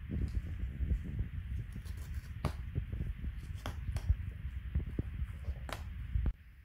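A low rumble on the microphone with a few sharp clicks and taps through it. The rumble stops suddenly near the end.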